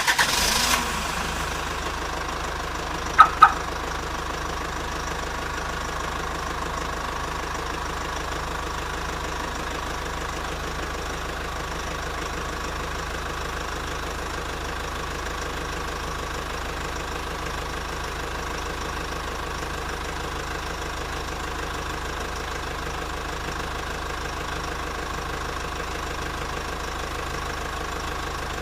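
Car engine just started, louder for the first second as it catches, then settling into a steady idle. About three seconds in, two short sharp sounds close together stand out above the idle.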